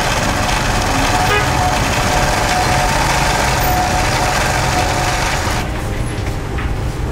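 Simaru SM-20U73 industrial zigzag sewing machine running at speed, stitching a decorative pattern through fabric with a steady, dense mechanical whir. About five and a half seconds in, the higher part of the sound drops away.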